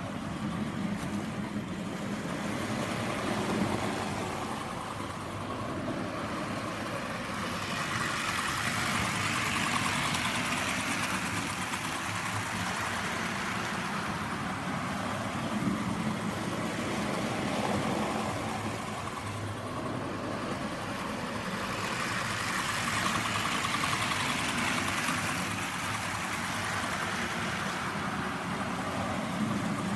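Model trains running on the layout track, the steady rumble of their wheels and motors on the rails, swelling louder twice as a train passes close by.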